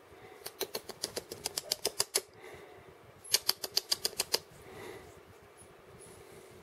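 Rapid sharp clicks, about eight to ten a second, in two runs of one to two seconds each with a pause of about a second between them.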